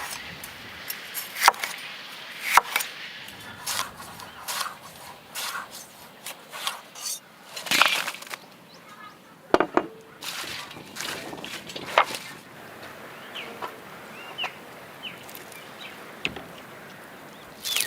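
Irregular sharp knocks and clicks, like hard objects or utensils striking wood, with a few faint short chirps about three-quarters of the way through.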